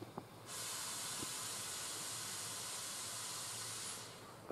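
Compressed air hissing out of the pneumatic system of a standing ED4M electric multiple unit: a steady hiss that starts suddenly about half a second in and lasts about three and a half seconds before fading out.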